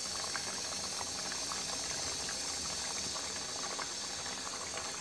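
Poa fish curry bubbling hard in a pot over a raised flame, a steady boil with many small pops as the sauce cooks down.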